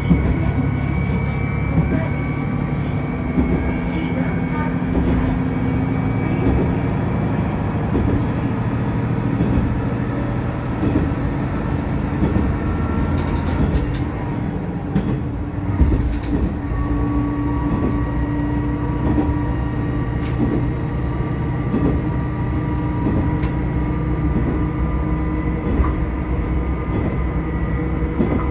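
Tosa Kuroshio Railway 8000-series diesel railcar running along the line, heard from on board: a steady engine and running drone whose tones shift in pitch about halfway through, with a few sharp clicks from the wheels on the track.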